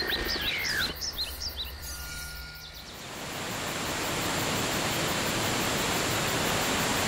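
Rushing waterfall: a steady roar of falling water swells in after about three seconds and holds. Before it come a few high chirping calls with falling whistles, over a quiet wild background.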